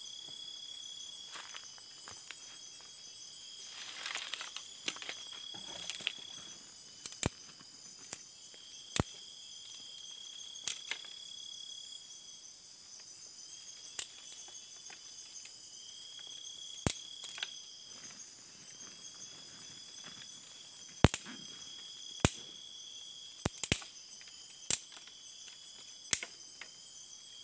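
Night insects, crickets among them, chirring steadily in a high chorus, with a longer chirp repeating every couple of seconds. Over it come a crunchy rustle of dry leaves and a series of sharp clicks and snaps, loudest in a cluster near the end, as a small fire of dry twigs and leaves is being lit.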